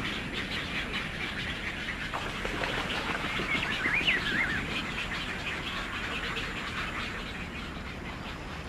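Outdoor bird ambience: a steady chatter of many birds, with one wavering, high call at about four seconds.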